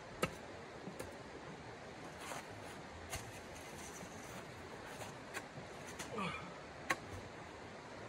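Steady rush of a shallow stream, with a few sharp knocks and scrapes as a small shovel is handled on icy ground. The loudest knocks come just after the start and about seven seconds in, with a short falling scrape just before the second.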